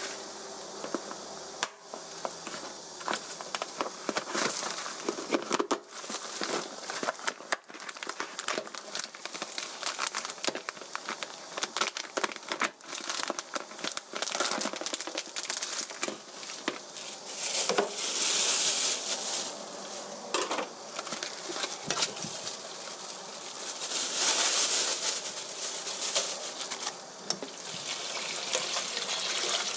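Plastic food packaging and a disposable plastic glove crinkling and rustling with many small clicks as raw chicken thigh meat is unwrapped and handled, with a louder spell about two-thirds of the way in. Tap water starts running near the end.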